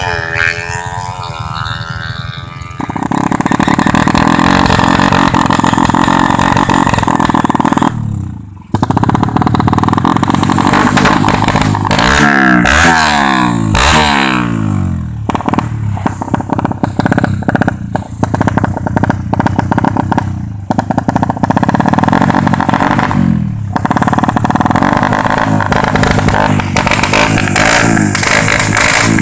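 Ported drag-bike motorcycle engine revving hard. The throttle is opened and held again and again, with the revs dropping sharply for a moment about eight seconds in and quick rising sweeps a few seconds later. The first few seconds are the engine running on the move, rising and falling in pitch.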